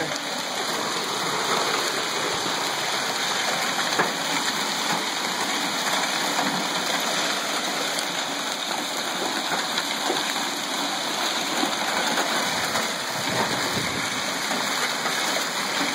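Heavy hailstorm: a dense, steady hiss of hailstones and rain pelting down, with scattered sharp ticks of individual stones striking.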